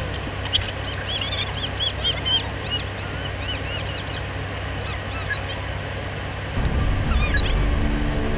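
Small birds chirping in a quick run of short, arched chirps that thins out after about four seconds, over the steady low hum of an idling car engine. A deeper rumble swells near the end.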